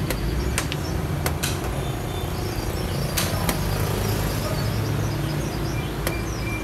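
Sharp clicks of xiangqi pieces being picked up and set down on the board, several in a row with a pause in the middle, over a steady low street rumble.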